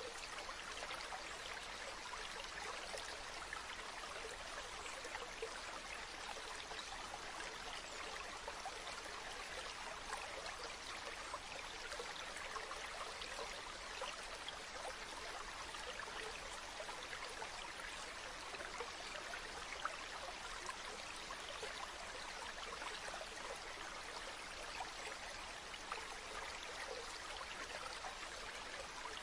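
A stream flowing steadily, a continuous babble of trickling and splashing water.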